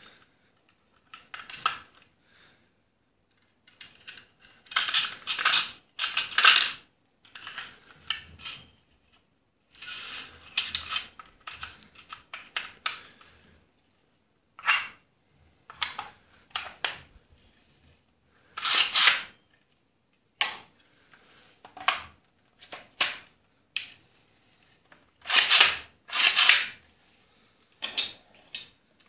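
Wooden replica Tokarev SVT-40 rifle being handled, its parts clicking, knocking and clattering in irregular bursts with short pauses between them.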